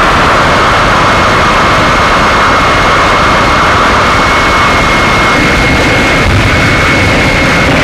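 Harsh noise music: a loud, dense wall of distorted noise, heaviest in the upper mids, with a thin steady high tone running through it that starts just after the beginning and stops near the end.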